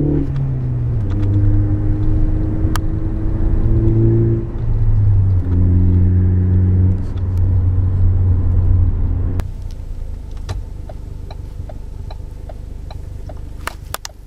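2017 Ford Focus ST's turbocharged four-cylinder running through a CNT Racing cat-back exhaust, heard from inside the cabin with the windows up while the car drives and shifts through gears. The engine note drops at each shift, about half a second and four and a half seconds in. About nine seconds in it changes abruptly to a quieter, lower hum with a light ticking about twice a second.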